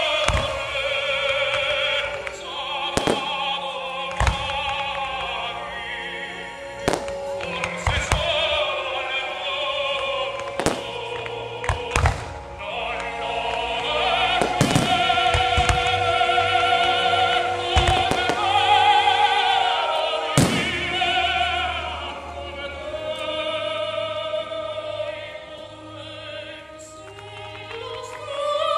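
Operatic singing over orchestral music, cut by a dozen or more sharp bangs of firework shells bursting at irregular intervals, the loudest about 12 and 20 seconds in.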